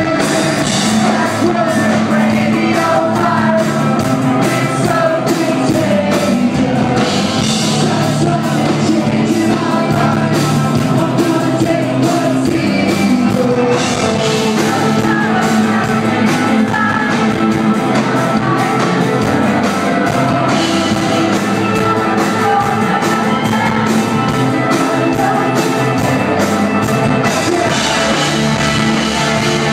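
Live rock band playing, with a steady drum beat, guitar and keyboard under a woman's lead vocal.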